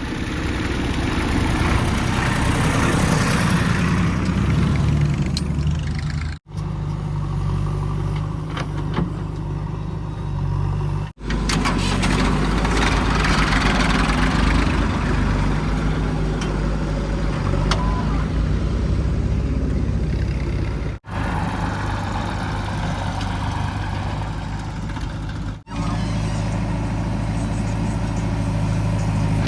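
Heavy diesel engine of a JCB 3DX backhoe loader running steadily at work. The sound breaks off sharply four times.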